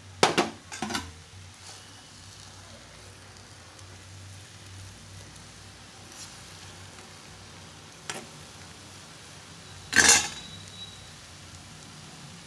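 Steel spatula stirring and scraping crumbly cooked moong dal puttu in a stainless steel pan, knocking against the metal: two sharp clinks just after the start, a lighter tap about eight seconds in, and a loud clang at ten seconds with a brief ring. A low steady hum runs underneath.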